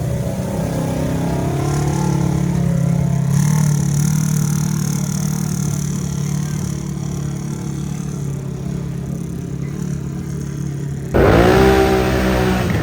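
Can-Am Outlander ATV's V-twin engine running on the trail, its pitch rising and easing off with the throttle. Near the end the sound jumps abruptly to a louder engine revving up and down.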